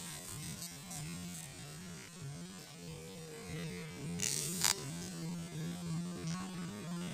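Fishing reel being cranked against a hooked snakehead: a steady whirring hum that wavers in pitch about twice a second. A short splash about four seconds in as the fish thrashes at the surface.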